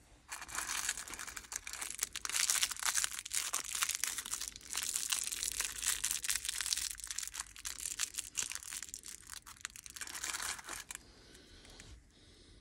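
Small clear plastic bag crinkling as fingers work green rubber O-rings out of it: a dense crackle with a short break about four seconds in, stopping about a second before the end.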